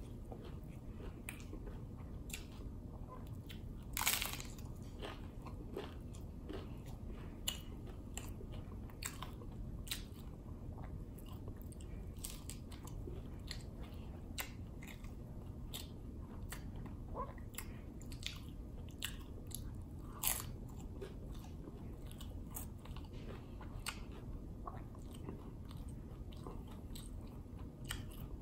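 A person chewing and crunching a hard taco shell, with many small crisp crunches and two louder bites about 4 s and 20 s in.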